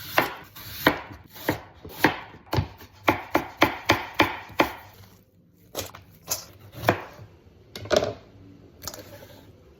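Knife chopping food on a cutting board: a run of sharp, separate strikes, roughly one to two a second, with a short pause about five seconds in and the strikes thinning out near the end.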